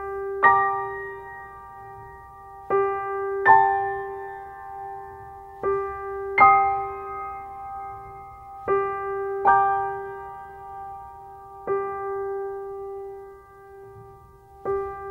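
Slow background piano music: a pair of notes or chords struck about every three seconds over a steady held note, repeating evenly.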